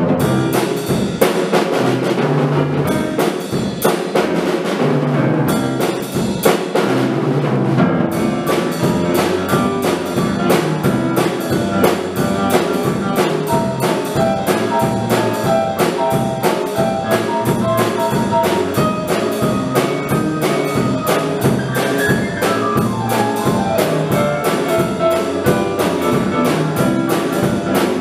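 Stagg drum kit and digital piano playing a piece together: a steady drum-kit beat with cymbal strokes under the piano's melody and chords. The cymbal strokes grow busier about eight seconds in.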